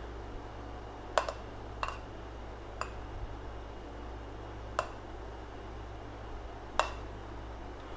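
A spoon tapping and scraping against a glass container, five light clicks spread a second or two apart, as the last of a thick glaze is worked out of it, over a steady low hum.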